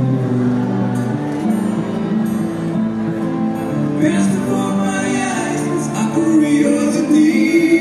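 Band music with a singing voice: steady bass and held chords, with a sung line coming in around the middle.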